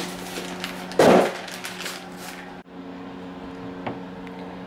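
Plastic wrapping on a new hood lift support crinkling in one short, loud burst about a second in, over a steady low hum.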